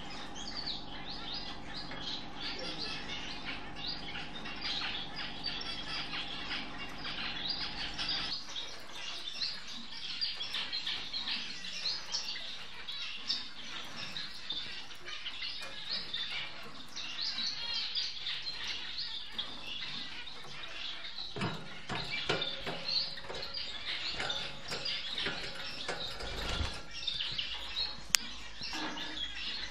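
Society finches (Bengalese finches) chirping, many short high chirps overlapping throughout. A steady low hum lies under the first eight seconds or so and stops abruptly; in the last third there are scattered sharp taps and knocks.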